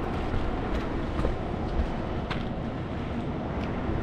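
Heavy lifting machinery, likely a crane truck's engine, running steadily with a low rumble while a rooftop HVAC package unit is lowered onto its curb rails; a few light knocks and clicks come through.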